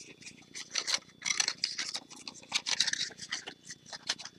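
Sheet of patterned designer paper crinkling and rustling in quick, scratchy crackles as it is folded and creased by hand along its diagonal folds, louder about a second in and again past the middle.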